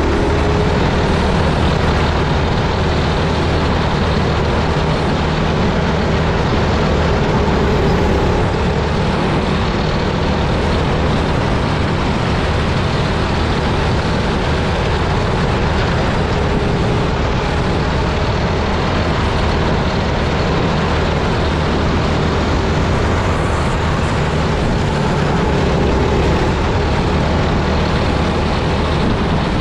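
Dirt racing kart's small engine running at speed, heard from the kart itself. Its note rises and eases a little every several seconds through the laps, under steady wind rush on the onboard microphone.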